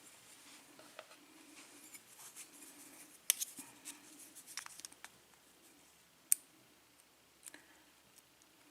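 Faint scraping and a few sharp little clicks of small brass lock pins being picked up and set down, the clearest about three seconds in and again past six seconds.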